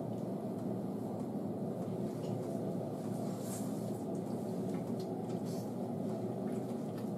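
A steady low rushing noise, with faint wet squishes and a few soft clicks as hands work conditioner through a Shih Tzu's soaked long coat.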